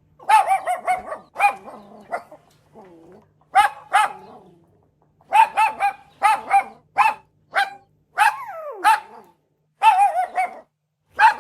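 A dog barking in quick runs of short, sharp barks, with a falling whine about eight seconds in.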